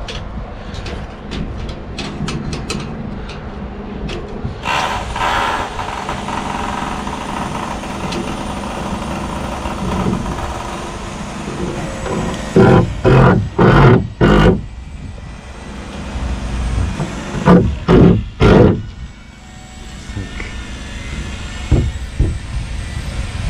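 Building-site noise: a steady low mechanical rumble, with light clicks at the start, then loud knocks, four in quick succession about halfway through and three more a few seconds later.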